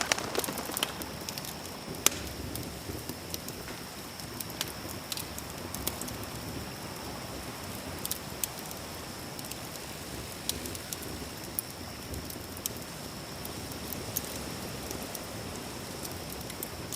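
Campfire crackling: a steady hiss of burning wood with scattered sharp pops and snaps, a quick cluster of them at the start and a loud pop about two seconds in. A thin steady high-pitched tone runs underneath.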